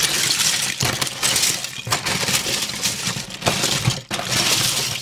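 Loose plastic Lego bricks clattering as hands rake and dig through a box full of them: a dense, continuous rattle of many small pieces knocking together, with a few brief lulls.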